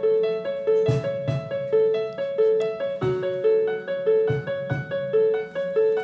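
Electronic keyboard playing a repeating figure of notes in a steady rhythm, with a low drum thump from a cajón now and then.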